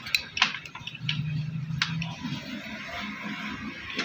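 A screwdriver clicking and scraping on the float-bowl screws of a Honda CD 70 motorcycle carburettor as they are tightened, several small sharp ticks in the first two seconds. A brief low hum sounds in the background about a second in.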